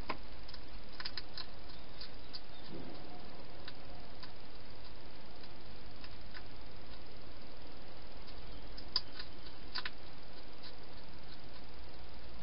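Wild hedgehog eating inside a plastic feeding box: scattered small sharp clicks and crunches, a cluster about a second in and two more near the end, over a steady hiss.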